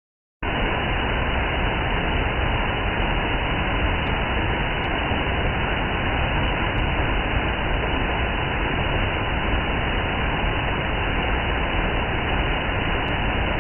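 Steady rushing of a waterfall pouring over a stone-block mill dam, an even roar with no change, starting abruptly about half a second in.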